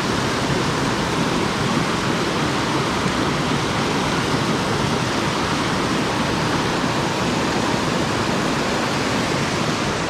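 Steady, loud rush of fast-flowing river water, an even wash with no breaks.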